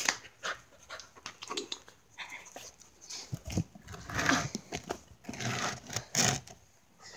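A dog panting close to the microphone in irregular breaths, louder about four seconds in and again near the end.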